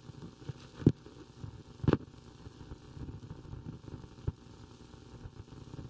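Handheld microphones being handled and lifted: three soft knocks and some rustling over a low steady background noise.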